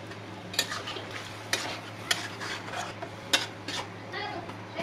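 Metal spoon stirring vegetables in broth in a steel karahi. It scrapes through the pieces and clinks against the pan at uneven intervals, about five times, over a low steady hum.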